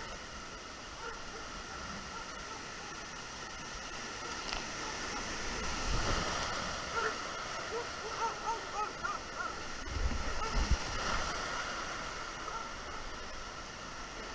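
Fast, flooded creek water rushing and splashing around a canoe, a steady roar of whitewater, with a few dull thumps about six and ten seconds in.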